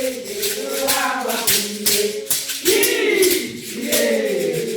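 Singing with a rattling percussion keeping a steady beat.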